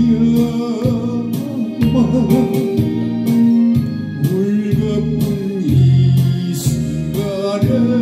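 A man singing a Korean ballad into a microphone over a backing track with organ and a steady beat.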